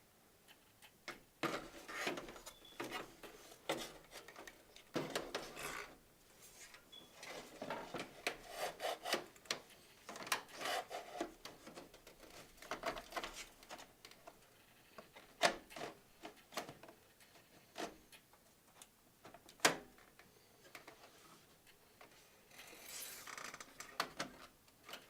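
Irregular scrapes, rubs and short knocks of a motherboard being handled and fitted into a PC case.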